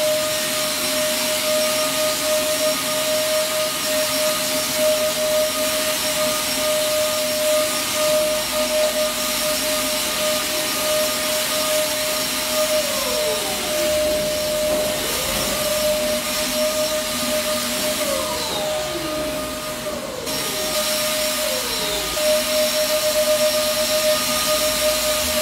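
Handheld electric fogging sprayer running steadily: a motor hum over a rushing hiss, with several short falling whines in the second half.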